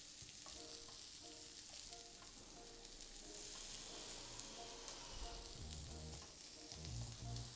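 Sliced carrots, French beans, onions and bell peppers sizzling in a little hot oil in a frying pan as they are sautéed.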